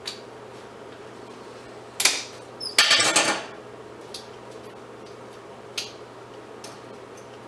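Pieces of scrap metal clanking and clattering as they are handled and pulled apart: a sharp clank about two seconds in, a longer rattling clatter just after, then a few light taps and clicks.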